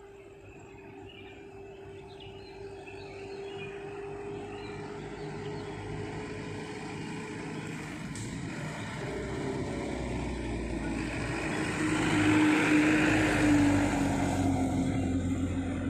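Vehicles turning a hairpin bend: a car's engine draws near, then a Tata 407 light truck's diesel engine and tyres grow steadily louder as it comes round the bend close by. The truck is loudest about three-quarters of the way in.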